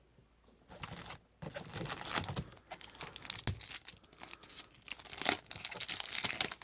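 A trading card pack wrapper being torn open and crinkled, in irregular crackly rustles that start about a second in.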